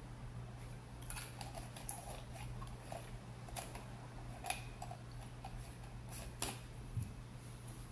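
Small plastic drink bottle handled and its cap put back on, giving a scatter of short clicks and taps, then a soft thump near the end as the bottle is set down.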